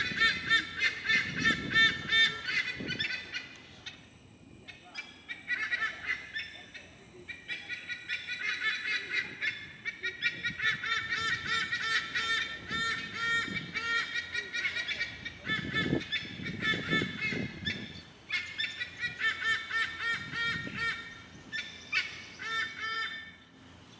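White-bellied sea eagles giving their raucous chorus: rapid runs of loud honking notes, several a second, in bouts separated by brief pauses.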